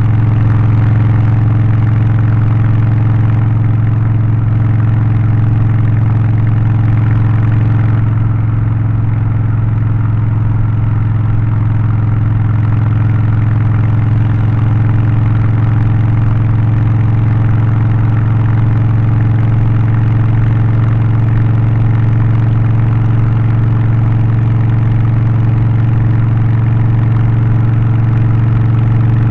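Harley-Davidson Low Rider ST's Milwaukee-Eight 117 V-twin, Stage 1 tuned with an aftermarket exhaust, air filter and remap, running at a steady engine speed with a deep, even exhaust note.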